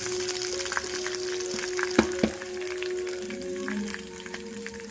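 Mustard and cumin seeds sizzling in hot oil, with scattered sharp pops and crackles. The loudest pops come as two quick cracks about two seconds in. Background music plays under it.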